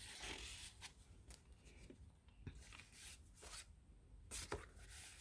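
Faint rustling of paper and card journal pages being handled and turned, with a few soft taps.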